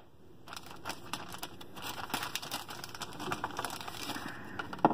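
Clear plastic zip-top bag crinkling and rustling as a hand rummages inside it, ending in one sharp knock.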